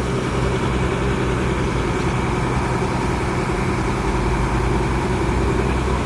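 Bus engine idling steadily, a low, even hum.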